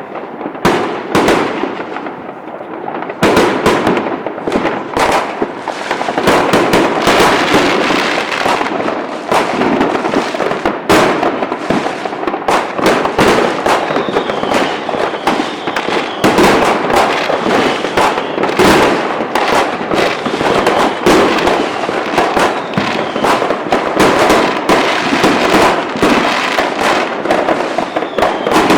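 Fireworks going off in a dense barrage: many bangs and crackles overlapping without a break, thickening about three seconds in.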